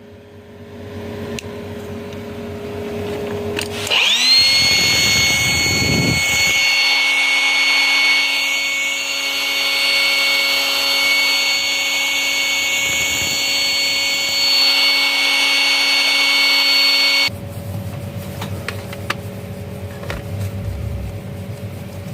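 Portable car tyre inflator running. Its electric motor starts about four seconds in, rises quickly to a steady high whine, and cuts off suddenly after about thirteen seconds. Softer mechanical rustling and a few clicks come before and after.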